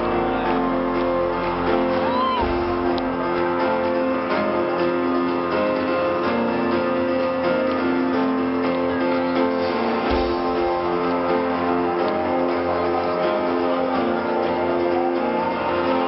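Live pop-rock music from a concert band over the arena PA, heard from among the audience, with steady held chords throughout.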